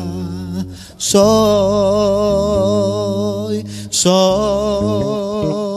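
Male voice singing long held notes with a wide, even vibrato over a steady sustained accompaniment. The held notes break briefly for a breath about one second in and again about four seconds in.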